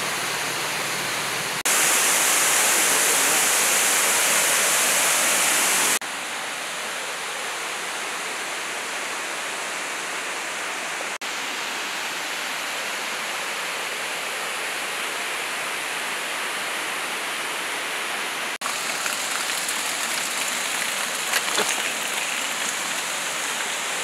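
Waterfall water rushing: a steady, dense noise with no pitch. It jumps louder and brighter about two seconds in, drops back about six seconds in, and shifts again abruptly twice more.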